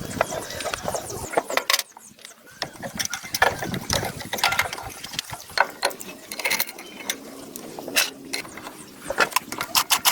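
Irregular metallic clicks and clacks of hand tools working on metal plow parts.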